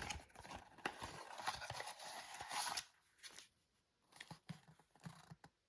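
Packaging being handled while a small garage door remote and its manual are unpacked: rustling and crinkling with small clicks and taps, quieter for the last couple of seconds.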